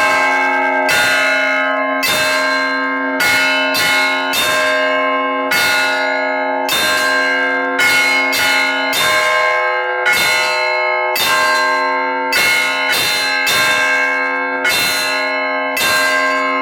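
Orthodox church bells rung by hand in the belfry: a quick peal of several smaller bells struck about twice a second, their tones ringing over one another. Beneath them a deeper bell hums until about halfway through and then stops.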